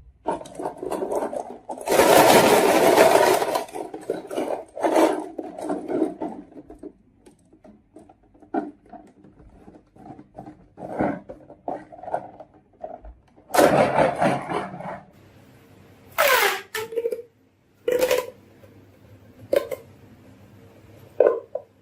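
Marbles rolling and clattering down a wooden marble-run track: a dense rattling run about two seconds in, then scattered clicks and knocks, with further loud rattles later on.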